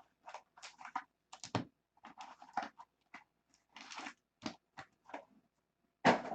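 Crinkling and rustling of trading-card packaging being handled and opened, in short irregular bursts, with a louder one near the end.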